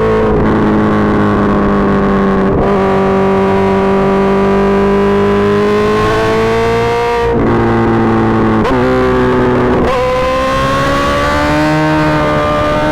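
Suzuki GSX-R1000's inline-four engine running hard through an M4 GP Series slip-on exhaust. The loud engine note climbs steadily, then breaks off and picks up at a new pitch several times, as at quick gear changes.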